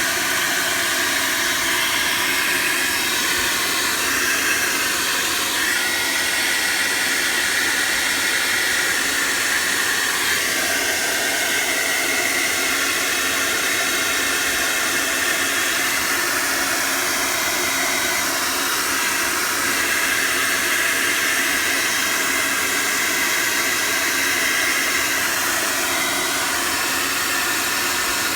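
Steady rushing of a hand-held hot-air blower running without pause, its tone shifting every few seconds as the airflow changes. It is being used to melt ice built up over a refrigerator's evaporator.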